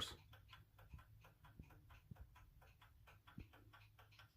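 Faint, rapid, even ticking of a 1937 Ingraham kitchen clock's pendulum movement, several beats a second: the restored mechanism is running.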